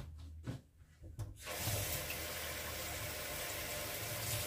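A kitchen tap is turned on about a second and a half in and water runs steadily, filling a container with the 2 cups of water for the rice. A few light knocks come just before.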